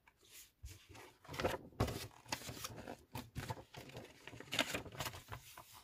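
A paper instruction sheet rustling and crackling as it is picked up and handled, in a string of short, irregular rustles and taps.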